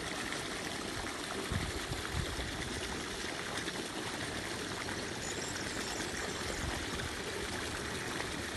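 Water gushing steadily from an irrigation borehole's discharge pipe and splashing into a concrete canal, a continuous rushing pour from the running well pump.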